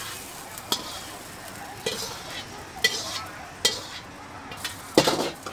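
Metal ladle scraping and clanking against a wok as fried rice noodles are scooped out onto a plate: about five sharp clangs, the loudest near the end, over a steady sizzle.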